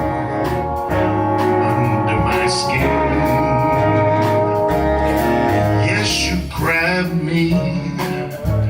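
Big band playing swing music: long sustained brass chords over walking bass and drum hits, with a male voice mixed in.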